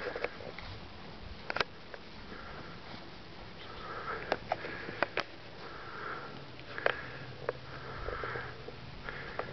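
Repeated sniffing through the nose, short hissy puffs about every two seconds, with several sharp clicks in between.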